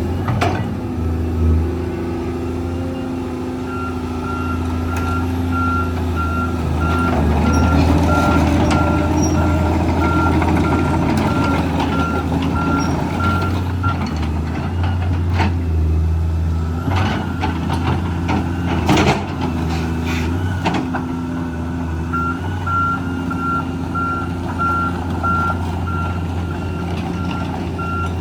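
Volvo EC240CL excavator running, its diesel engine holding a steady note while its motion alarm beeps at an even pace, about once a second, for long stretches. The engine swells for a few seconds, and a string of sharp metal clanks comes a little past the middle.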